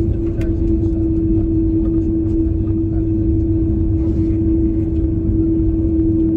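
Jet airliner's cabin during taxi, heard from a window seat: the engines and cabin give a steady, even drone with one constant tone over a low rumble.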